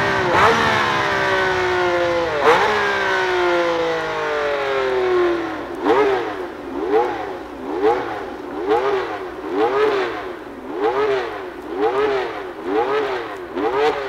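1960s Formula One racing engines at high revs, a car passing with its note falling in pitch in the first half. From about six seconds in, an engine note rises and falls about once a second.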